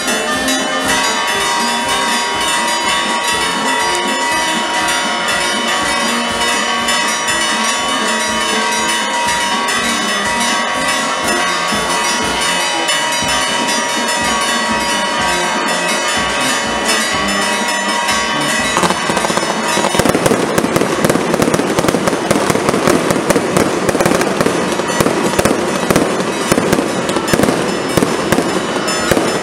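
Festival firecrackers going off in a dense, continuous crackle, with long steady ringing tones above it for the first two-thirds. About two-thirds of the way in the tones drop out and the crackle grows louder and thicker, a full barrage.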